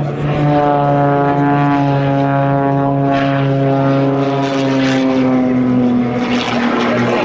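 Extra 330 aerobatic planes' piston engines and propellers droning as two of them cross in flight, one engine's pitch falling slowly as it passes.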